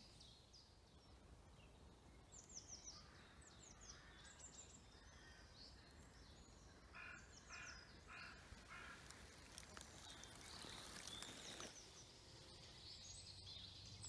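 Quiet woodland with faint birdsong: short high chirps now and then, and a run of about four quick calls around the middle.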